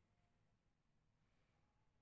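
Near silence: a gap with nothing audible.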